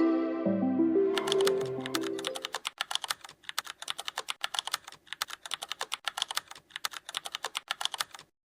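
Computer keyboard typing: rapid clicking keystrokes in quick runs with short pauses, starting about a second in and cutting off suddenly near the end. Soft background music fades out under the first couple of seconds.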